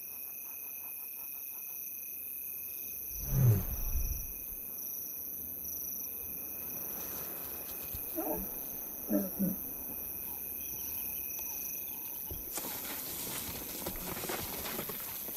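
Lionesses' soft contact calls to their cubs: a deep, low moan about three seconds in and two shorter calls near eight and nine seconds, over a steady chorus of night insects. A soft rustle comes near the end.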